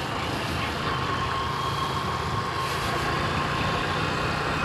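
Vehicle engine running steadily while driving along an unpaved dirt road, with road noise and a faint steady whine.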